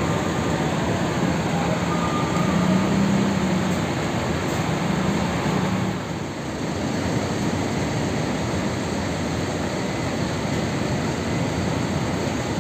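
Intercity coach bus engines running over steady vehicle noise. A low engine hum stands out for the first several seconds and eases off about six seconds in.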